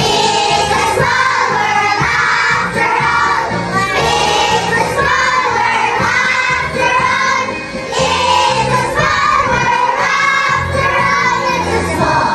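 A group of children singing together in chorus over accompanying music with a steady beat.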